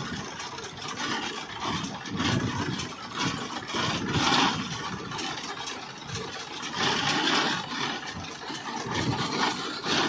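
Massey Ferguson 241 DI tractor's diesel engine idling, its sound swelling and fading every second or two.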